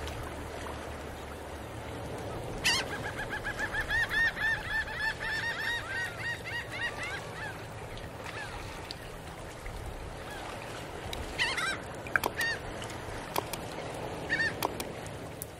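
Waterfowl honking: a rapid run of repeated calls starting about three seconds in and lasting about four seconds, with a few more scattered calls near the end.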